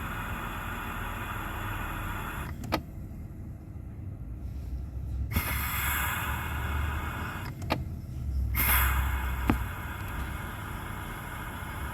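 Minivan engine idling with a steady low hum, with a few sharp clicks about three, eight and nine and a half seconds in.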